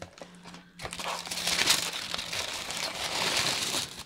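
Packaging crinkling and rustling as a subscription box is opened by hand, starting about a second in and going on continuously.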